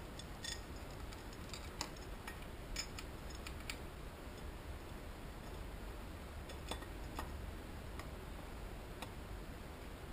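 Light metallic clicks and taps of small engine parts being handled on a motorcycle cylinder head: a quick cluster in the first few seconds, then a few single clicks later.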